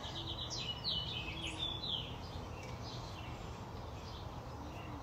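Songbird chirping: a quick run of short high notes, then a few downward-sliding notes, in the first two seconds, over steady faint outdoor background noise.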